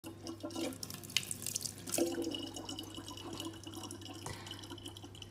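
Thin stream of tap water pouring into a plastic water bottle, trickling and splashing in irregular small drips.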